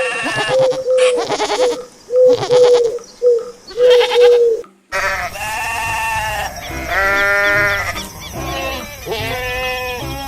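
Goats bleating repeatedly: a run of short, quavering bleats in the first half, then longer, drawn-out bleats.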